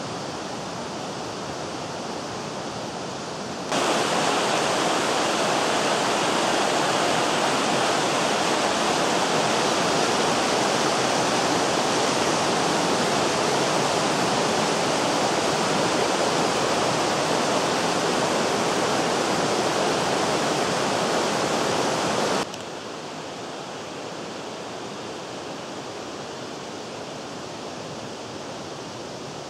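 Rushing water of the Vydra, a rocky mountain river, as a steady hiss-like rush. It jumps suddenly louder about four seconds in and falls back just as suddenly to a quieter rush about twenty-two seconds in.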